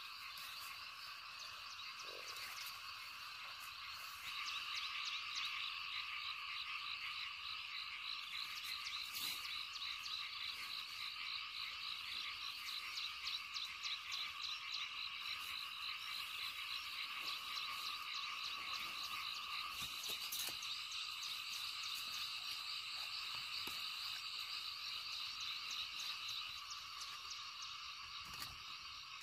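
A steady outdoor chorus of many small animals calling, with fast pulsing at several high pitches. It grows louder about four seconds in and eases off near the end.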